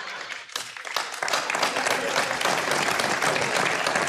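Studio audience applauding, the clapping swelling about a second in and holding steady.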